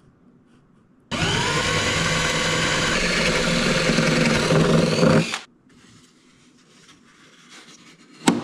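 Power drill spinning up and boring a magnet hole into the balsa fuselage, running steadily for about four seconds before stopping. A single sharp click comes near the end as the balsa hatch is set back down over its loose magnets.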